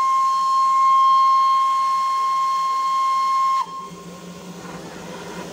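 Whistle of a Darjeeling Himalayan Railway B-class steam locomotive, No. 806, giving one long, shrill, steady blast. It cuts off with a slight drop in pitch about three and a half seconds in, leaving a softer hiss of escaping steam.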